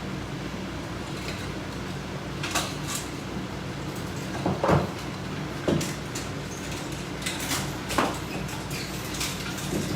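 A few separate light knocks and clicks of resistance band exercise hardware (clips and handles shifting on the mounted attachment bar) as the bands are worked, over a steady low hum.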